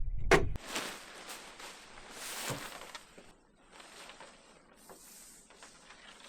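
Irregular rustling and scraping strokes from handling a tarp and gear while rigging a canoe-and-tarp shelter. They come after a sharp knock and a brief low rumble that cut off at about half a second in.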